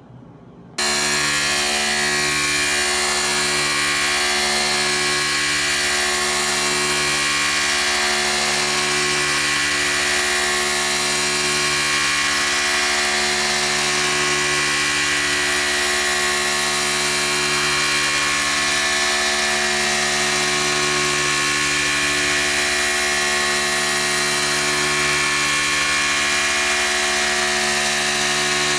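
Tormach PCNC 1100 CNC mill cutting 6061 aluminum with an end mill. It is a steady machining whine with several tones that swell and ease every second or two as the tool moves through its path, over a steady hiss. It starts abruptly just under a second in.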